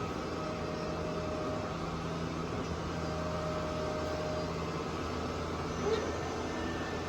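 Two-spindle CNC wood lathe running with a steady machine hum, with a short brief sound about six seconds in.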